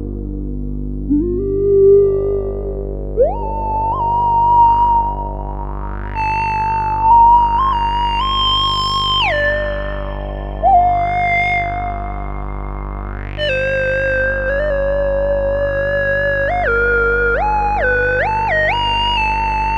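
Yamaha CS10 and CS01 analog synthesizers playing a slow, held lead line whose notes glide from one pitch to the next, over a steady low drone. A filter repeatedly sweeps open and closed, giving a rising-and-falling wah about every two seconds.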